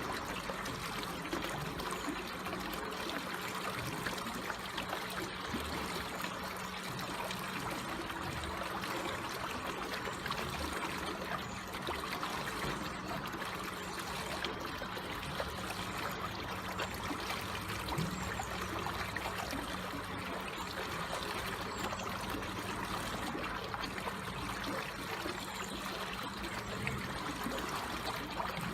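Water flowing slowly and trickling in a steady, even babble.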